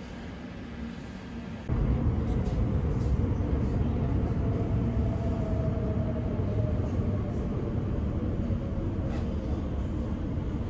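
Class 345 Elizabeth line train heard from inside the carriage, running through a tunnel. A steady low rumble comes up sharply about two seconds in, with a faint motor whine that slowly falls in pitch.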